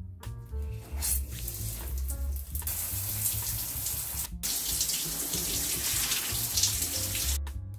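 Shower running: a rush of water that starts about a second in, gets much louder a couple of seconds later, and breaks off for an instant near the middle. Background music with a low beat plays underneath.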